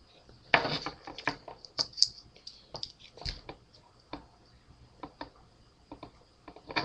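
Irregular light clicks and taps of a small plastic Beyblade top and its parts being handled while stickers are put on, the busiest and loudest cluster coming about half a second in.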